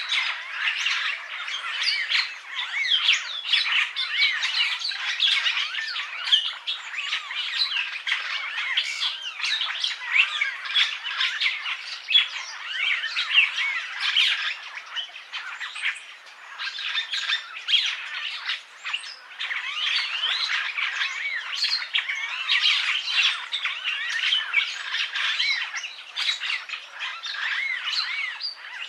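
Purple starling (Lamprotornis purpureus) song: a continuous, dense chatter of short rising and falling whistles mixed with harsh notes, with no pauses.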